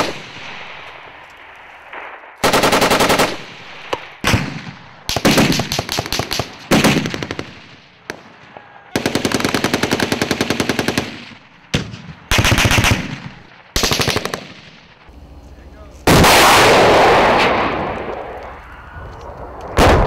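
Machine-gun fire in about nine bursts, mostly short, with one long burst of about two seconds. About sixteen seconds in comes a single heavy blast that rumbles on and fades over a few seconds.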